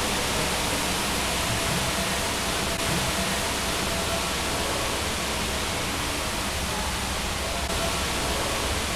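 Steady, even hiss of room noise in a lecture hall, with a faint distant voice under it.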